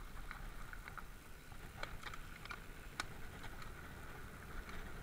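Mountain bike rolling along a dirt forest trail: a steady rumble of tyres on the ground and wind on the camera, with scattered sharp clicks and rattles from the bike, the loudest about three seconds in.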